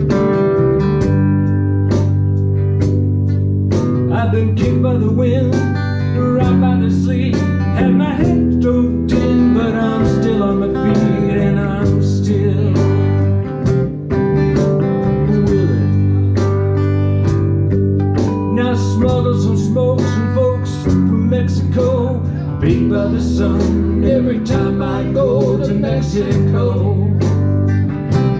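Live band music: an electric guitar and an acoustic guitar playing a song together through amplifiers.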